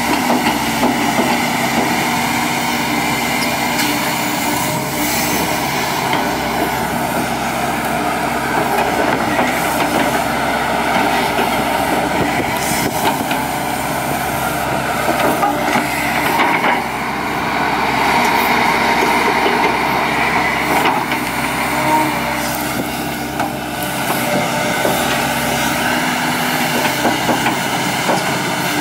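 Volvo EC210D crawler excavator's diesel engine and hydraulics running under load as it digs soil and lifts loaded buckets, the loudness easing and building again with the work.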